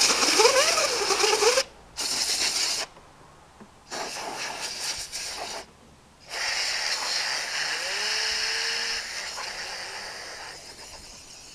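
Compressed air hissing from a handheld blow gun in four blasts, the first short and loudest and the last a long one of about five seconds. A wavering tone rides on the first blast. The long last blast weakens steadily as the compressor's tank runs low on pressure.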